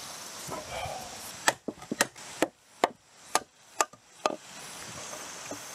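A hammer knocking on a joined wooden frame: about eight sharp strikes, roughly two a second, on the wood of a mortise-and-tenon post-and-beam model.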